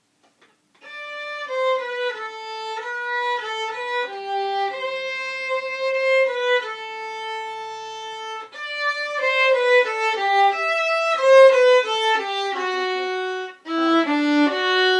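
Solo violin playing a bowed melody of single notes. It begins about a second in and pauses briefly twice, once about halfway and once near the end.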